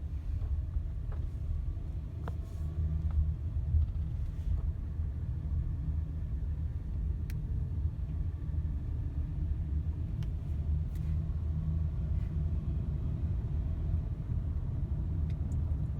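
Steady low road and engine rumble inside the cabin of a Honda Odyssey minivan on the move.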